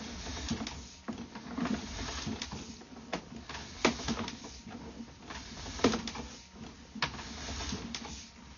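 Irregular clicks and knocks, one or two a second and unevenly spaced, over a low hiss, from a sewer inspection camera's push cable being pulled back.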